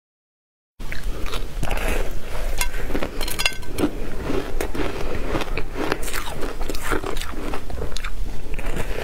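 Biting and chewing a frozen block of shaved ice topped with matcha powder: a dense, continuous crunching and crackling of the ice, starting about a second in.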